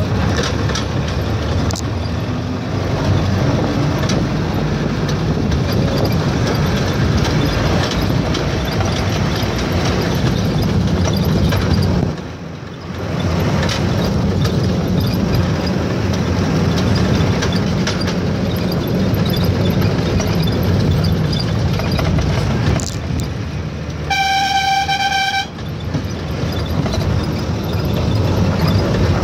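Steady running noise of a moving road vehicle, with a vehicle horn sounding once near the end, a single held note lasting about a second and a half.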